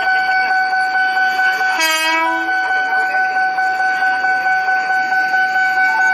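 Level crossing warning alarm sounding steadily while a KAI Commuter electric train crosses, and about two seconds in the train gives one short horn blast, under a second long.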